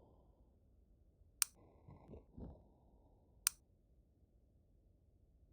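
Two sharp clicks about two seconds apart, with soft low thumps between them.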